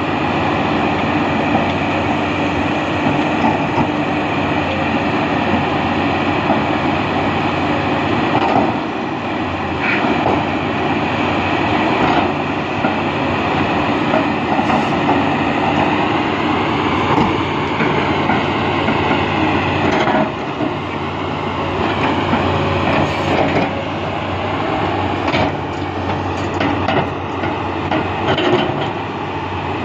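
XCMG XE370CA crawler excavator's diesel engine running steadily under working load, with a steady whine over it and a few short knocks as the boom and bucket work in sand.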